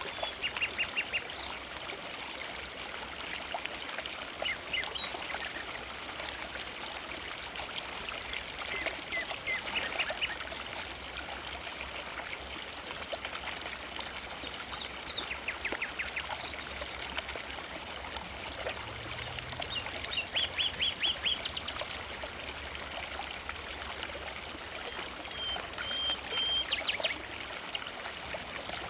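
River water flowing steadily over rocks, with a small bird calling in short rapid series of notes about every five seconds.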